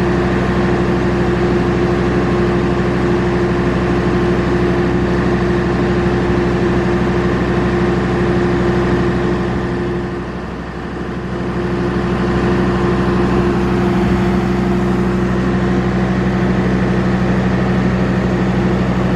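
Steady hum of a standing train's diesel engine idling at the station, with a brief drop in level about ten seconds in.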